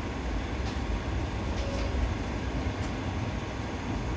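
Toronto streetcar rolling along its track, heard from inside the car: a steady low rumble of wheels on rail and running gear, with a few light clicks.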